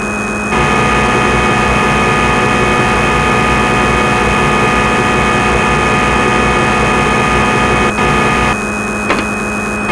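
CNC lathe running a turning program: a steady machine hum with high, fixed whining tones. It starts abruptly and shifts slightly near the end.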